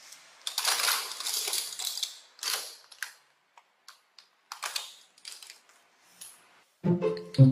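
Plastic toy sticks and balls rattling and clattering against each other and the sides of a plastic bin as they are rummaged through, then scattered single clicks and knocks as pieces are picked out. Background music comes in near the end.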